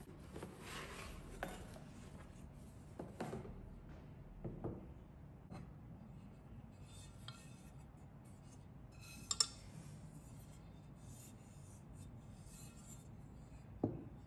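Cookware being handled: a glass pot lid and a ceramic-coated pot rubbing and knocking lightly as they are moved and turned over. A sharper knock comes about nine seconds in and another near the end.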